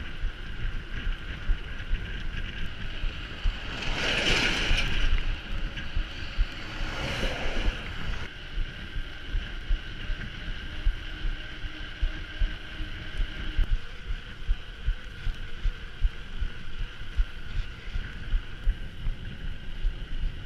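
Wind buffeting the microphone of a camera on a moving mountain bike, with a constant low rumble and two louder rushes of wind about four and seven seconds in. A faint steady high whine runs underneath.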